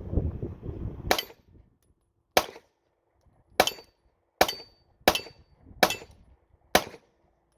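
Seven 9mm pistol shots from a Glock-pattern handgun, fired singly at an uneven pace, roughly a second apart.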